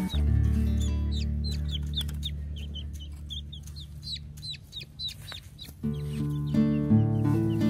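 Baby chick peeping: short, high cheeps, about three or four a second, that stop about five and a half seconds in. Background music underneath fades out and comes back about six seconds in.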